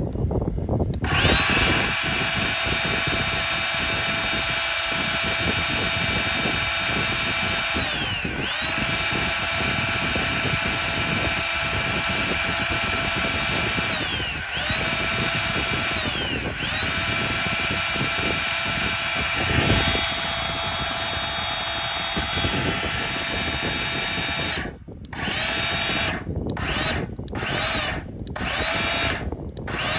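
Electric motor of a Hilti metal-cutting power saw running with a steady high whine. It briefly slows and spins back up three times, then is switched on and off in short bursts near the end.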